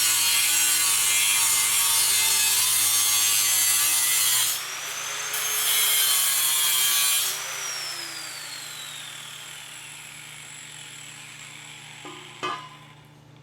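A power cutting tool cutting a steel bolt down to length, with a short pause about four and a half seconds in. About seven seconds in it is switched off and its whine falls as it winds down. A single sharp knock comes near the end.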